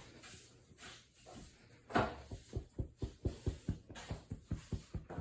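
Shih tzu puppy sneezing once, sharply, about two seconds in, followed by a quick run of short, low puffs of breath, about five a second.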